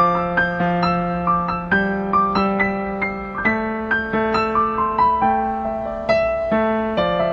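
Gentle piano music: a melody of single struck notes, each fading away, over low bass notes.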